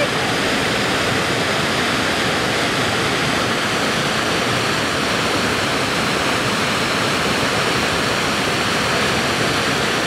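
Water pouring over a low, stepped rock waterfall on a small river, a steady, even rush.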